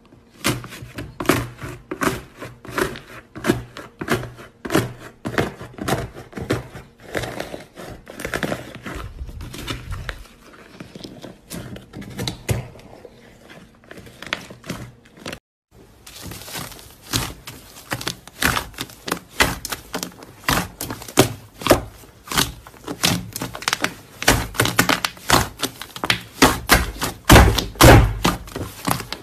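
Hands squeezing and pressing slime: a rapid, irregular stream of sticky clicks and pops. It breaks off for a moment about halfway, then starts again louder as a puffy slime is poked and kneaded.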